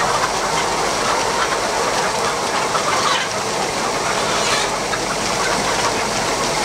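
Steady din of a large flock of chickens crowded in a poultry shed, many birds clucking and calling at once.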